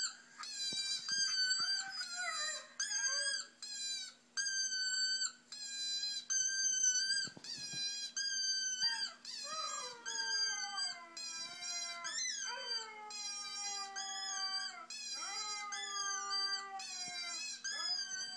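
Recorded dog howling played from a device: a run of short, high-pitched howls, then from about halfway several overlapping howls that fall in pitch.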